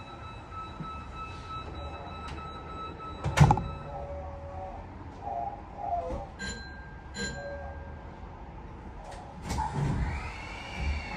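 Inside the cab of a stopped Kita-Osaka Kyuko 9000-series train: a steady electrical hum with faint steady tones, one loud sharp knock about three and a half seconds in, two short beeps around six and seven seconds, and a whine that rises and then falls near the end.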